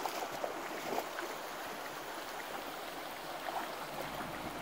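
Shallow river flowing, a steady rush of water, with small irregular splashes from dogs drinking and wading at its edge.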